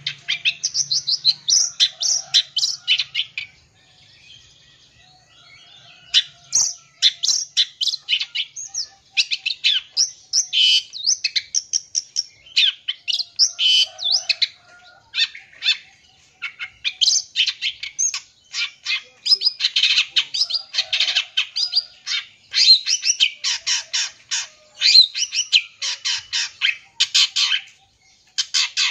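Long-tailed shrike (cendet) singing a fast, chattering song packed with mimicked calls of other birds, with a short pause about four seconds in.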